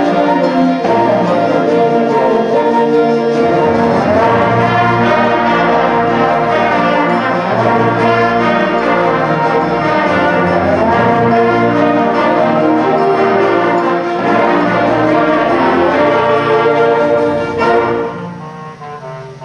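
Junior high school concert band playing a loud, full passage with the brass prominent; near the end it drops suddenly to a much softer passage.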